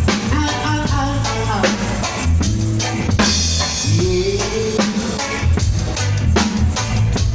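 Live reggae band playing an instrumental passage during a soundcheck: drum kit with kick, rimshots and snare keeping a steady beat under a bass line and chords, with a cymbal crash about three seconds in.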